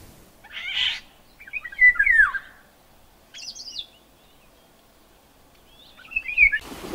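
Eurasian golden oriole singing: short fluty whistled phrases with quiet gaps between them. The loudest phrase comes about two seconds in and ends in a falling whistle. It follows a brief rasping note about half a second in.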